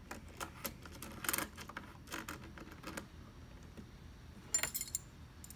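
Small metal clicks and rattles as the scabbard's loosened mounting brackets and clamp hardware are handled and slid, then a brighter metallic clink about four and a half seconds in.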